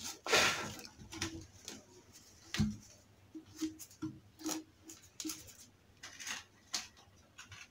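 Handling noises as parts are fitted to a jet pump's body: scattered clicks and rustles, with a dull knock about two and a half seconds in.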